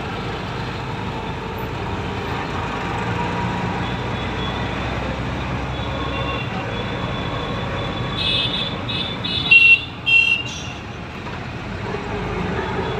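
Steady running noise from inside an auto-rickshaw in city traffic. From about eight seconds in, a vehicle horn honks several short times, ending in two loud blasts around ten seconds in.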